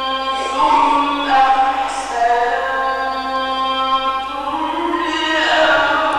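A man's voice reciting the Quran in the ornamented mujawwad style, holding long melismatic notes that glide up and down between pitches.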